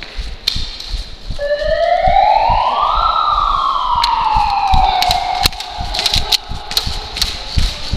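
A siren winding up once, its pitch rising for about a second and a half, then winding down more slowly over the next two and a half seconds, with scattered clicks and knocks throughout.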